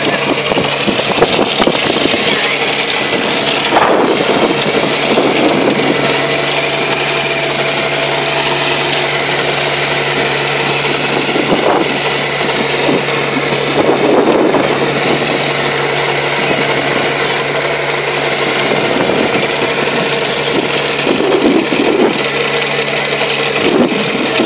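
Compact tractor engine running steadily under load while its PTO-driven rotary tiller cum ridger churns through soil, with a steady high whine over the engine.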